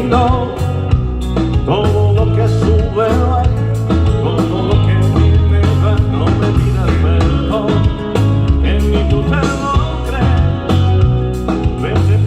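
Live rock band playing amplified through a hall's sound system, with heavy bass notes, steady drum hits and a wavering lead melody over the chords.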